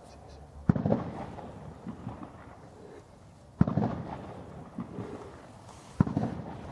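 Three sharp low thumps, roughly three seconds apart, each trailing off in a fading rumble.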